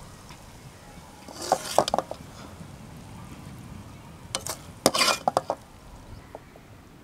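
A metal ladle scraping and clinking against the pan and plate as cooked conch meat masala is scooped out and served, in two bouts: one about a second and a half in and one around five seconds in.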